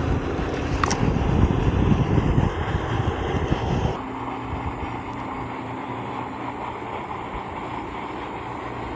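Gusting wind noise on the microphone for about four seconds, then a sudden drop to a quieter, steady outdoor background with a faint low hum.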